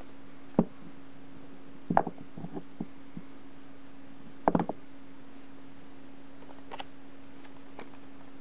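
Hands handling small toys and blind-box packaging on a table: a few sharp clicks and knocks, loudest in two short clusters about two and four and a half seconds in, over a steady low hum.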